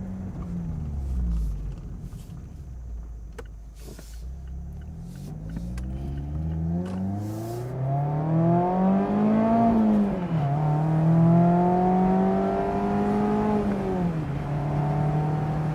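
Mazda MX-5 Miata's 2.0-litre four-cylinder engine under way through the gears. The revs fall at first, then climb for several seconds, drop sharply at a shift about ten seconds in, climb again more slowly and drop once more, then hold steady at cruise near the end. A few sharp knocks from rough road come in the first several seconds.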